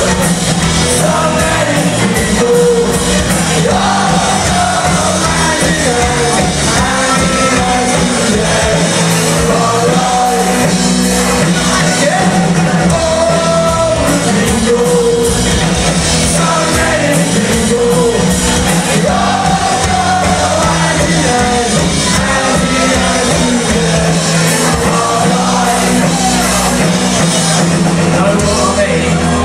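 Live covers band playing a song at full volume, with a lead singer over the band, heard in a music venue's hall.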